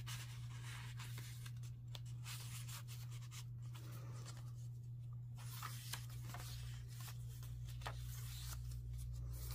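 Faint rustling and rubbing of paper as a handmade journal's tag and pages are handled and turned, over a steady low hum.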